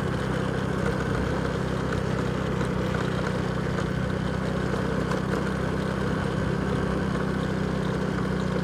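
Motorcycle engine running at a steady speed while riding, a constant even hum.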